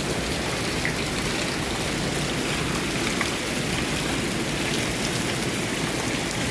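Heavy rain falling steadily, with scattered drops pattering on surfaces and on standing floodwater.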